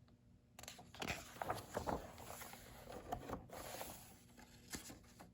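Soft rustling of paper with small crackles and taps as a picture book's page is turned and handled. The rustle starts about half a second in and fades near the end.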